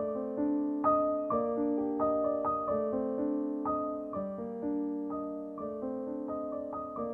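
Gentle solo piano background music, notes struck in a steady flowing pattern and left to ring.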